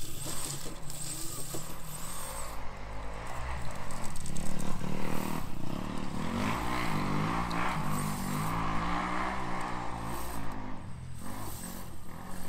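Dirt bike engines revving in the background, their pitch rising and falling over and over, strongest through the middle of the stretch, over a steady hiss.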